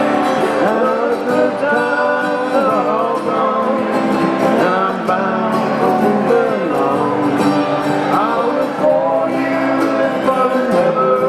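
Acoustic guitars strumming a country-folk song, with a melody line gliding over the chords.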